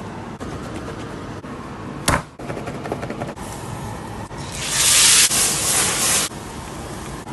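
A hot pan hissing loudly for about two seconds as fat sizzles and flares up, cutting off abruptly. Earlier, about two seconds in, a single sharp knock.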